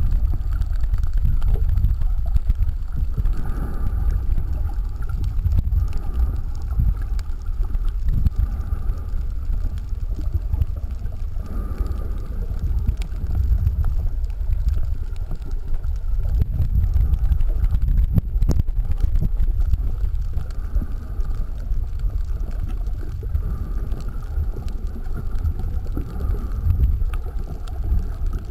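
Muffled underwater rumble of water moving around a submerged camera's housing: a steady low noise that swells and eases every few seconds.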